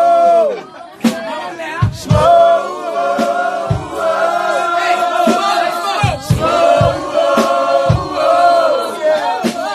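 A group of men singing a mock gospel hymn together in a choir-like style, holding long notes. Deep thumps and sharp hits of a beat sound at irregular intervals underneath.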